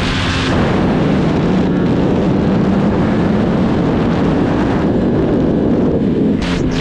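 Superbike engine running hard at road speed, its note drifting up and down, under heavy wind buffeting on the microphone, with a brief lift-off about six seconds in.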